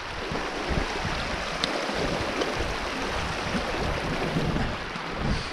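Steady rush of a small rocky mountain stream running high with rainwater, with irregular low gusts of wind buffeting the microphone.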